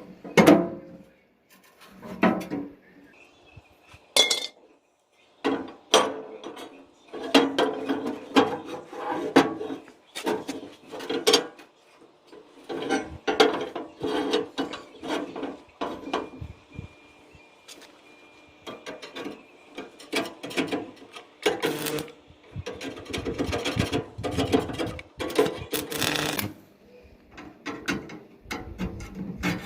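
Metalwork on thin steel: irregular short bursts of scraping and rasping, broken by sharp clicks.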